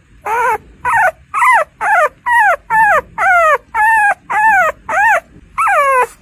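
Newborn puppy crying: a rapid series of short, high-pitched squealing cries, about two a second, each rising and then falling in pitch.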